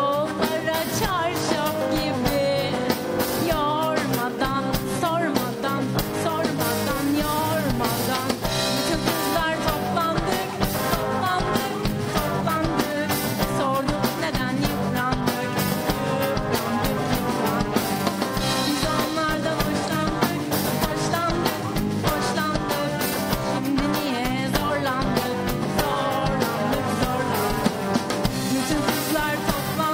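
Live pop-rock song: a woman singing into a microphone, backed by a band with electric guitar and drums.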